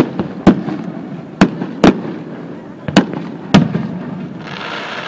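Aerial fireworks display: about six sharp shell bursts in the first three and a half seconds, then a hissing crackle near the end.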